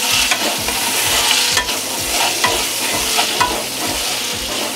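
Whole slit tindora (ivy gourds) sizzling in hot oil in a non-stick kadai while a wooden spatula stirs them. The spatula scrapes and knocks against the pan in quick, even strokes, about four a second, over a steady frying hiss.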